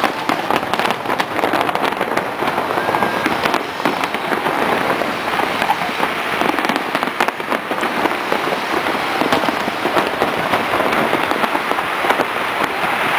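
Aerial fireworks crackling in a dense, continuous rattle of many small pops.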